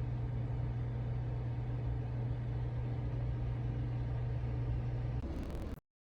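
A steady low machine hum with one strong steady tone. The tone drops away about five seconds in, there are a few clicks, and the sound cuts off abruptly.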